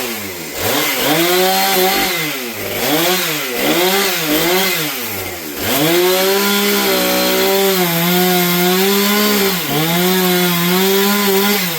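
Husqvarna 460 two-stroke chainsaw revved up and down in about six quick blips, then held at high speed for about six seconds with one brief dip, dropping off at the end.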